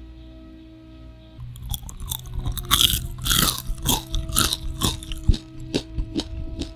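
Crispy potato-starch-coated fries being bitten and chewed close to the microphone: a quick run of loud, sharp crunches, several a second, starting about a second and a half in. Soft background music with sustained notes plays underneath.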